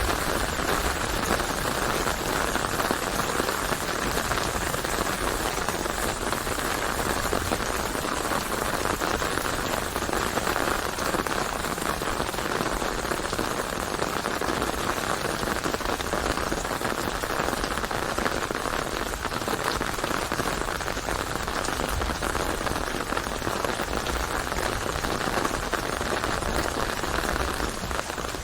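Steady rain falling, an even hiss without let-up and no thunder.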